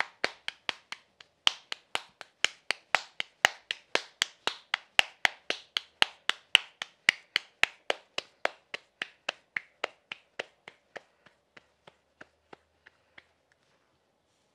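Hands patting corn masa flat into a tortilla by hand: a run of sharp, even slaps about three times a second that grow weaker near the end and stop.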